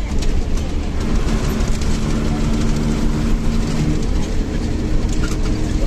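Bus running along the road: a continuous engine and road drone with scattered rattles, and a steady hum that comes in about a second and a half in.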